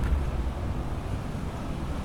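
Strong gusting wind buffeting the microphone, a low steady rumble.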